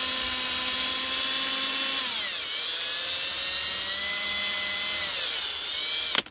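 Electric drill spinning a foam polishing pad against a plastic motorcycle mirror housing: a steady motor whine whose pitch sags about two seconds in and again near the end as the pad bears on the plastic. It stops suddenly with a click.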